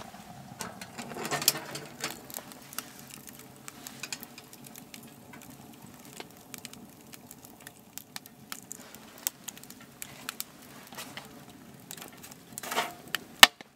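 Wood fire crackling and popping steadily inside a Winnerwell tent stove. About a second and a half in there is a loud metal clank as the stove door is opened, and near the end a split log is pushed into the firebox, ending in a sharp knock.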